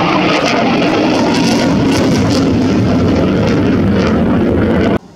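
Eurofighter Typhoon's twin EJ200 jet engines in afterburner as it flies past, a loud, steady noise that cuts off abruptly about five seconds in.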